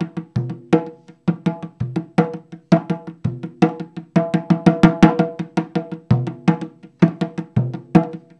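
Instrumental music of quick, ringing struck notes from a pitched percussion instrument, played in rhythmic phrases with short pauses between them.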